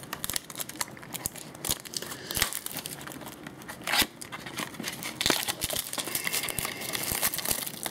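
Trading card pack wrappers being torn open and crinkled by hand, an irregular run of crackles with a louder rustle about four seconds in.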